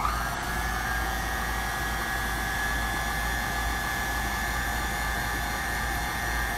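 KitchenAid Artisan stand mixer running steadily at speed, its motor giving a constant whine as the beater mixes cake batter in the steel bowl.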